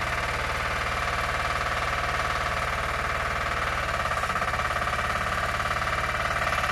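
Mini excavator's small diesel engine idling steadily with a fast, even pulse, running again with its fuel tank, fuel lines, injector and injection pump freshly cleaned.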